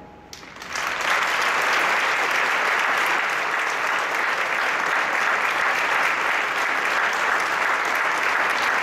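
Audience applauding, swelling in during the first second and then holding steady.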